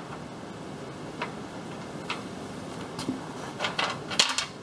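Light metallic clicks as bolts are run into a mower deck's spindle housing: single clicks spaced about a second apart, then a quicker, louder cluster near the end.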